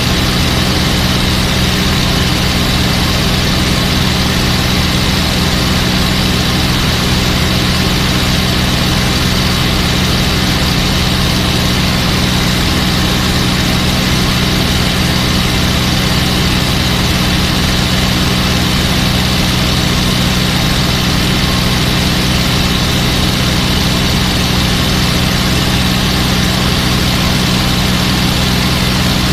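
P-51 Mustang's V-12 piston engine running steadily in formation flight, heard from the cockpit, with a constant hiss of rushing air over it.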